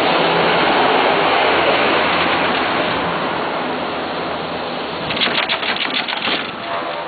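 A 1996 Poma Italia detachable quad chairlift in motion: a steady rushing noise of the lift machinery, with a rapid clatter of about eight clicks a second for a second and a half starting about five seconds in.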